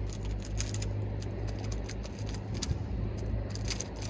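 A 3x3 speed cube being turned rapidly by hand, a fast run of sharp plastic clicks from its layers, over a steady low hum.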